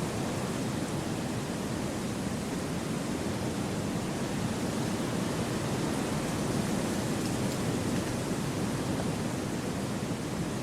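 Wind rushing through forest trees: a steady, even rush with no distinct gusts, fullest in the low range.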